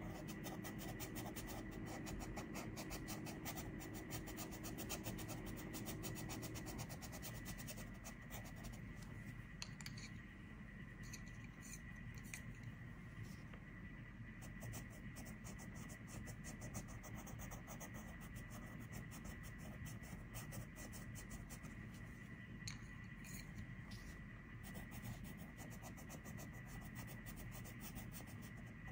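Colored pencil scratching on paper in quick back-and-forth shading strokes, faint and continuous, thinning out somewhat about a third of the way through.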